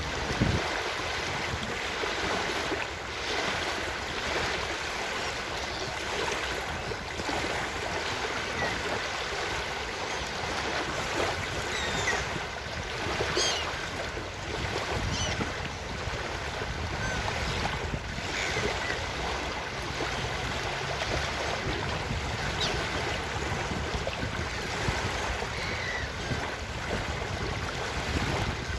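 Ocean surf washing steadily, with wind buffeting the microphone. Short seagull calls break in a few times, mostly in the middle of the stretch.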